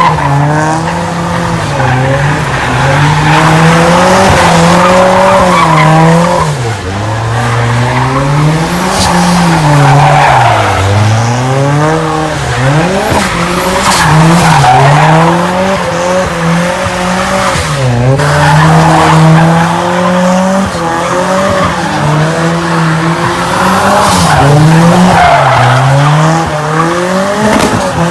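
A car drifting: its engine revs up and down over and over, often held at high revs for a few seconds before dropping and climbing again, while the tyres squeal.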